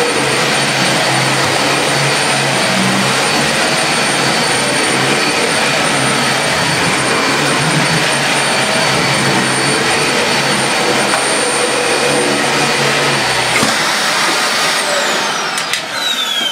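Dyson Ball Animal 2 upright vacuum cleaner running on max over a deep-pile carpet: a loud, steady rushing noise with a high whine. About fourteen seconds in it is switched off, and the whine falls away as the motor spins down.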